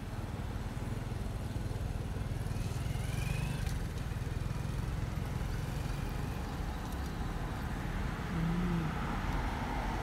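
Steady road traffic rumble, swelling and easing once about two to four seconds in as a vehicle passes.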